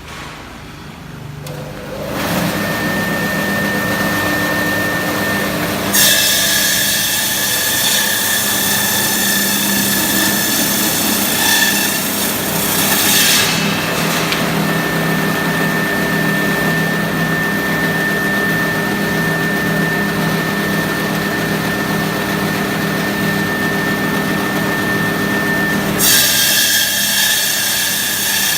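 Electric ice-cutting machine starting up about two seconds in with a steady motor hum and whine. From about six seconds its blades work through ice with a loud, steady hissing grind, which drops away near the end, leaving the motor running.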